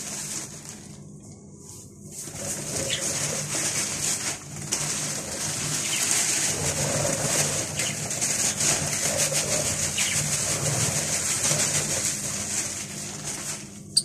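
A flock of budgerigars chattering and warbling, a busy mix of high chirps that grows louder about two seconds in.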